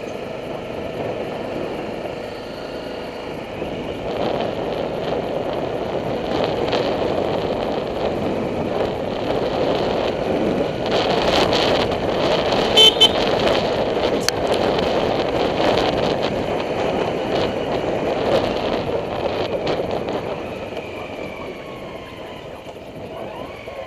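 Honda CRF250 dirt bike riding slowly, with a steady rumble and wind noise that swells toward the middle and eases off near the end. About halfway through come two quick toots of its horn.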